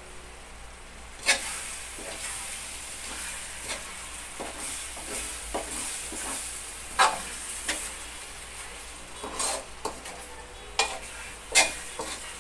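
Metal spatula stirring and scraping taro leaves in a metal wok over the heat, with a steady frying sizzle. Several sharp clinks of the spatula against the pan, the loudest about a second in and a quick run of them near the end.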